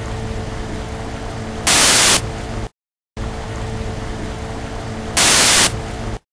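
Audio glitch loop: a steady hum with low noise is broken about two seconds in and again near the end by a half-second burst of loud hiss. Each burst is followed by a half-second cut to dead silence, and the cycle repeats about every three and a half seconds.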